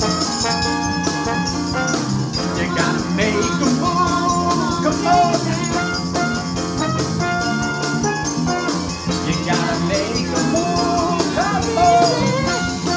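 Upbeat backing music with a steady drum beat. A singer adds wordless vocal runs about four seconds in and again near the end.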